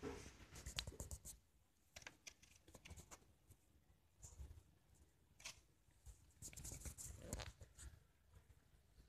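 Faint, irregular scratchy rasps and rustles of a cat licking and rubbing against a dog's long fur, in clusters with quiet gaps between.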